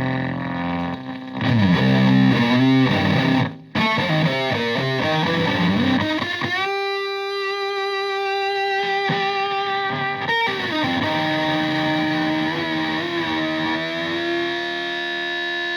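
Electric guitar with single-coil pickups played through a Marshall Supa Fuzz (Tone Bender MKII–style) fuzz pedal into a Twin Reverb–type amp. A held chord gives way to a quick lick with bent notes, which stops briefly just before 4 seconds in. The guitar then holds two long fuzz-sustained single notes, the first from about 6 to 10 seconds in and the second from about 11 seconds to the end.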